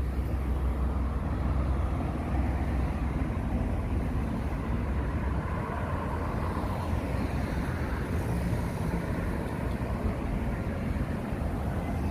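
Steady street traffic noise from passing cars, with a constant deep rumble.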